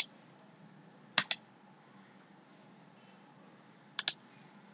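Sharp clicks of computer input: one at the start, then two quick pairs, about a second in and near the end, with faint room tone between.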